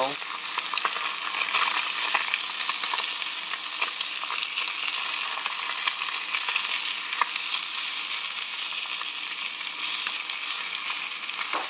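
Walleye fillets frying in melted butter in a small pan: a steady sizzle with small crackles and pops, as a plastic spatula turns the fillets over.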